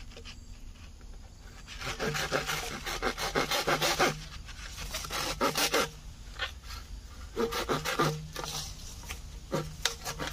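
Small hand saw cutting through a green bamboo stalk: rapid back-and-forth rasping strokes in several short bouts with brief pauses between them.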